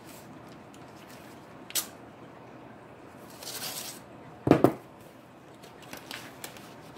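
Envelope and card being handled and opened with a metal letter opener: a sharp click, a short rustling swish about halfway, two loud knocks soon after, and light taps near the end as the letter opener is laid down on the cardboard parcel.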